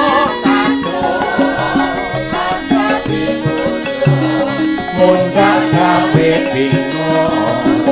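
Javanese gamelan music: bronze metallophones and gong-chimes playing a steady melody, kendang hand drums keeping the rhythm, and a female sindhen singing a wavering vocal line that comes in near the start and again in the middle.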